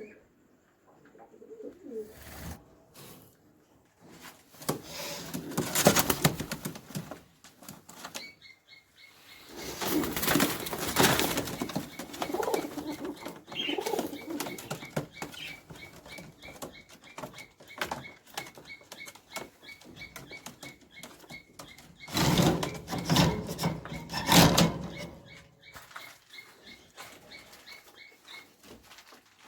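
Caged pigeons flapping their wings in three loud bursts, about five seconds in, ten seconds in and again near the three-quarter mark, among softer rustling and cooing.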